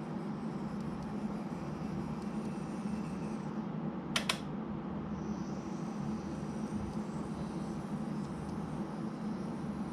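KATO N-gauge model tram's small electric motor and gearing running with a steady hum, with two quick clicks about four seconds in.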